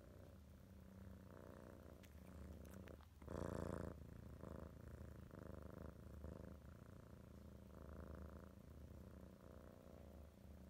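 Golden British shorthair cat purring faintly close to the microphone, swelling and fading in cycles about a second apart. A brief louder sound a little over three seconds in.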